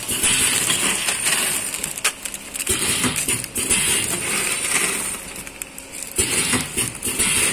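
Sealed plastic bags of popcorn crinkling and rustling as they are handled, in three bouts, over the faint steady hum of the ZV 420C popcorn packing machine running.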